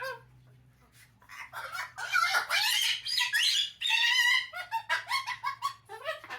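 Umbrella cockatoo vocalizing in a rapid string of short chattering calls that bend in pitch, starting about a second in and loudest in the middle, with a faint steady low hum underneath.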